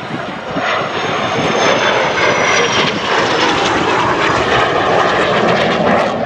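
BAC Strikemaster's Rolls-Royce Viper turbojet on a low pass: a jet roar that grows louder, with a high whine that falls in pitch over the first few seconds.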